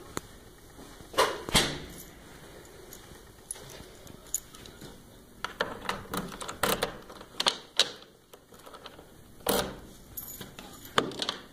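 Keys jangling and working the lock and metal knob of a wooden door: a string of sharp metal clicks and knocks, loudest twice about a second and a half in and in a busy cluster past the middle.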